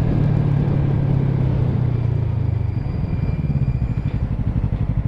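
Yamaha parallel-twin motorcycle engine running under way with a steady hum, then about three seconds in it drops to a slower, evenly pulsing beat as the throttle comes off.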